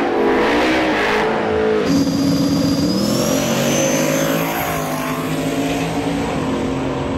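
Drag race cars' engines running hard on a drag strip. About two seconds in, the sound switches to another car whose engine note rises as it pulls away down the track.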